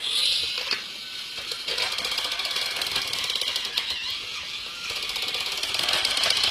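Toy drill from a take-apart truck set, running with a fast, continuous ratcheting click as it drives in the screw that fastens a wheel.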